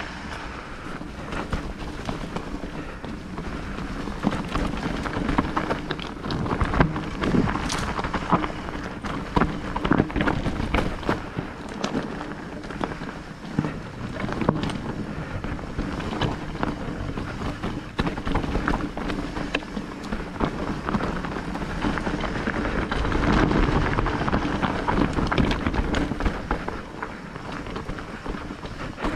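Electric mountain bike riding over a rough rocky trail: tyres rolling on stones with frequent sharp knocks and rattles from the bike, and wind rushing over the microphone.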